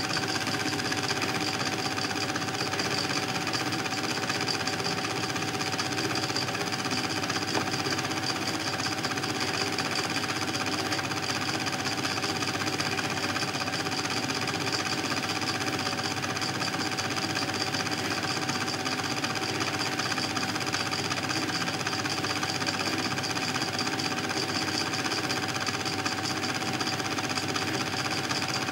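Film projector running steadily: the fast, even clatter of its film-pull mechanism over a constant motor hum, unchanged throughout.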